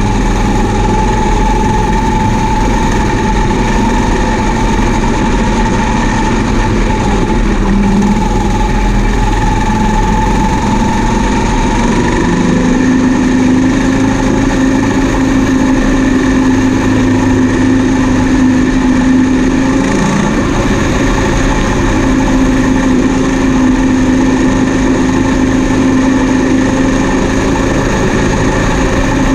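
Combine harvester running steadily, with several steady hums and whines. A low hum steps up in pitch about 12 seconds in, and there is a short break in the sound about 20 seconds in.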